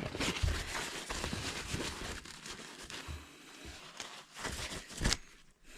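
Paper towel rustling and crinkling as it is rubbed over a speed cube, wiping off excess factory lube, with a sharp click about five seconds in.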